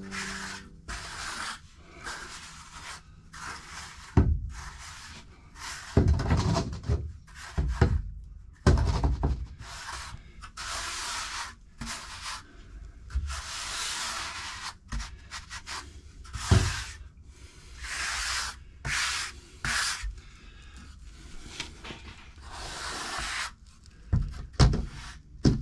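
A trowel scraping and smoothing dry-pack sand-and-cement mortar for a shower pan, in repeated long strokes. A few dull knocks come as the mix is packed down.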